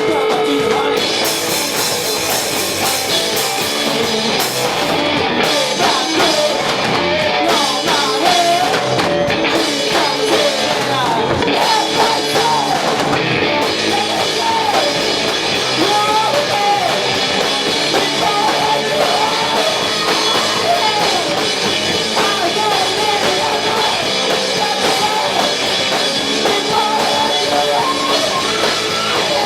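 Live rock band playing: drum kit and electric guitar, with a wavering melodic line over them through the middle of the stretch.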